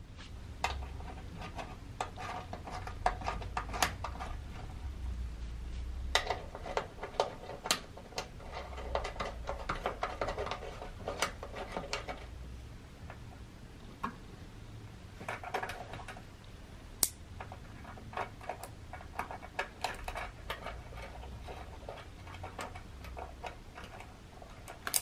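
Irregular light clicks and metallic taps of steel support cables, carabiners and screw fittings being handled and fastened to a red light therapy panel, over a soft low handling rumble.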